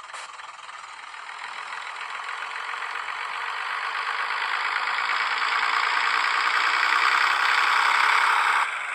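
Sound-fitted N gauge Graham Farish Class 101 DMU model pulling away, its sound decoder playing diesel engine sound through the model's small onboard speaker. The engine sound grows steadily louder, then drops sharply near the end.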